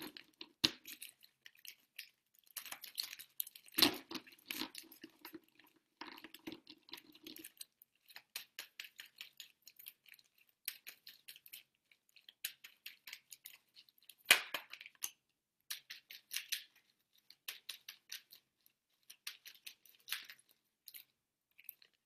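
A deck of astrology cards being shuffled by hand: runs of quick, light flicks and clicks of card edges with short pauses between them, and two louder flurries.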